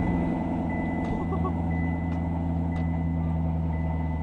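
Chevrolet Corvette Stingray C7's 6.2-litre V8 idling steadily just after starting, through a new aftermarket muffler, heard from inside the cabin. A faint high steady tone sits above it.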